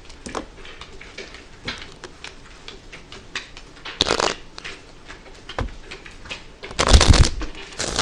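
A deck of playing cards being shuffled and handled, with soft scattered flicks and two louder bursts of card noise about four and seven seconds in.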